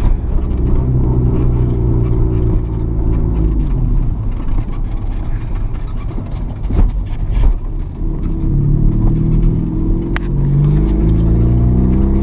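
Honda Civic's four-cylinder engine heard from inside the cabin. It pulls steadily under load, falls away about four seconds in as the driver shifts, then climbs in pitch again from about eight seconds as it accelerates, with a couple of sharp knocks in between. The engine is being driven with too little throttle, which the passenger calls suffocating the engine.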